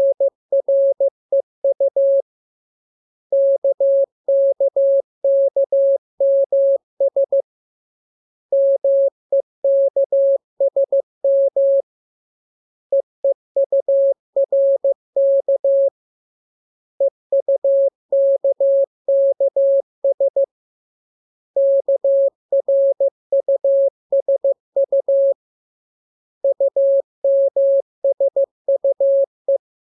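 Morse code practice tone: a single steady beep keyed on and off into dots and dashes, sending the lesson's letters K, M, U, R, E and S. It comes in seven runs of a few seconds each, with pauses of about a second between them.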